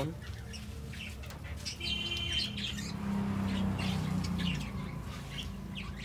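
Budgerigars chirping and chattering, with many short high calls overlapping.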